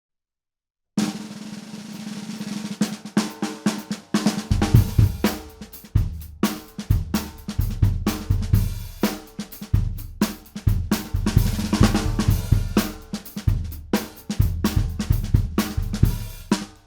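British Drum Co. Raven snare drum, a 10-ply birch shell, played on a drum kit. About a second in a dense snare roll builds in loudness. From about four and a half seconds in it turns into a groove of snare hits over bass drum beats.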